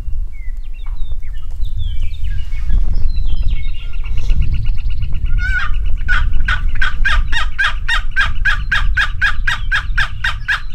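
Turkey yelping: a long, even series of raspy yelps at about four a second, starting about six seconds in and cutting off abruptly at the end. Small birds chirp in the first few seconds.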